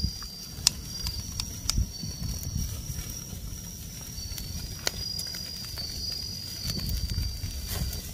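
Kitchen scissors snipping through grilled ribs and metal tongs clicking against a wire grill over a wood fire: a few sharp clicks, the loudest just under a second in. Behind them runs a steady high trill of night insects.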